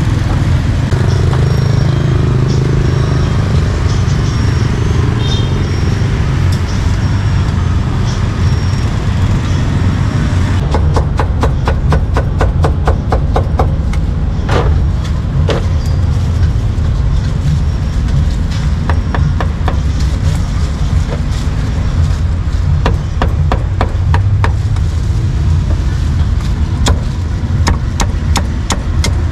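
Steel cleaver chopping on a thick round wooden chopping block, cutting cucumber and then roast pork. Rapid knocks start about a third of the way in, with some pauses, over steady low street noise.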